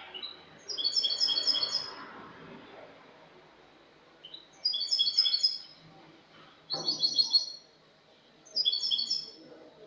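European goldfinch (jilguero) singing its clean song: four short phrases of rapid, repeated high chirping notes, each about a second long, separated by brief pauses.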